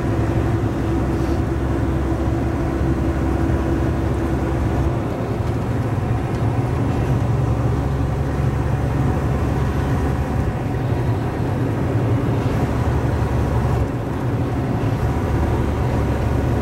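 Semi-truck cab interior while driving: steady low diesel engine drone with tyre and road noise. The low note shifts about five seconds in and again near the end.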